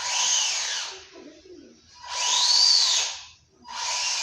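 Electric RC car motor whining in three throttle bursts, its pitch rising and then falling within each burst as the car speeds up and slows.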